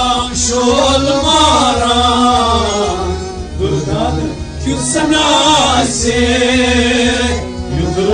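Kashmiri Sufi song: a man singing long, bending melodic phrases over sustained harmonium chords, with a steady low drum beat underneath.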